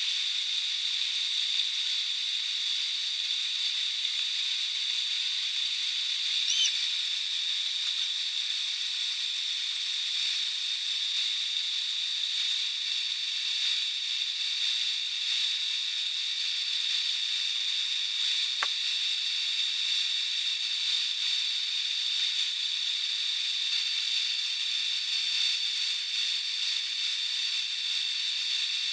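Metal lathe running steadily with its chuck spinning, a constant high hiss-like whir. Near the end, sandpaper is held against the spinning workpiece, adding a faint scratchy rasp.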